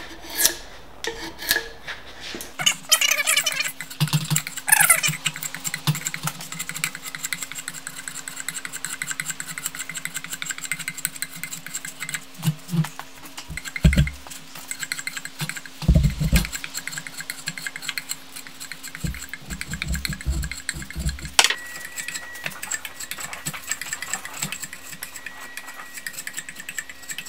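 A drawknife shaving a hickory axe handle, its blade scraping along the wood in repeated pulled strokes, with a few dull knocks. A steady low hum runs underneath from about two seconds in.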